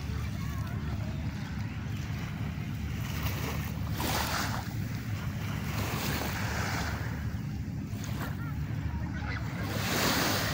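Small waves lapping on a sandy shore, with wind buffeting the microphone as a steady low rumble. The wash of water swells up a few times, about four, six and a half and ten seconds in.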